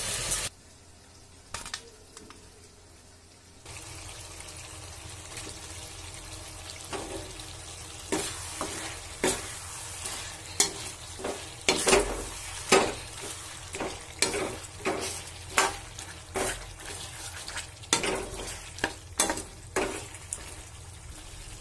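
Chicken feet and gizzards sizzling as they fry in a wok, with a metal spatula scraping and clinking against the pan about once a second as they are stirred. The first few seconds are quieter, with a single click, and the frying hiss starts about four seconds in.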